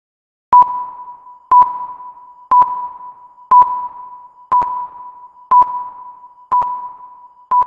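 Countdown beep sound effect: a sharp click with a single-pitched electronic beep that fades away, repeating evenly once a second, eight times.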